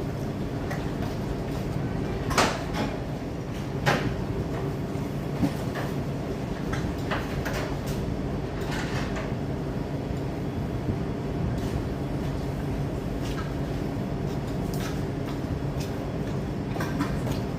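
Commercial kitchen background: a steady machine hum with scattered knocks and clatter, the sharpest about two and a half seconds in and again at four seconds.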